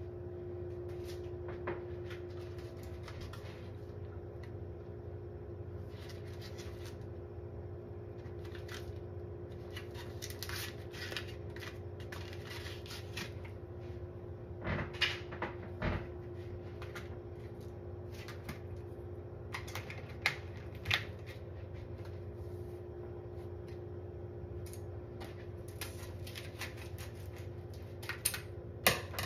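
Pine-Sol suds in a sink settling, with small bubbles popping in faint, scattered crackles over a steady low hum. A few louder sharp clicks stand out, the biggest near the end.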